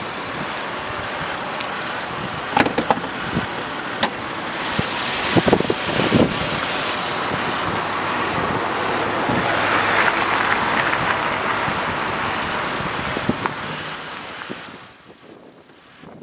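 Road vehicle noise: a steady rush that swells over several seconds and then drops off suddenly near the end. A few sharp clicks sound in the first six seconds.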